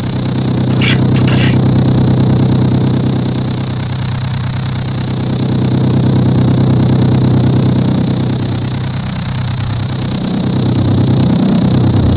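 Power electronics noise music: a loud electronic drone with a steady high-pitched whine over a low hum, pulsing rapidly and swelling slowly in loudness. Low sounds bending in pitch come in near the end.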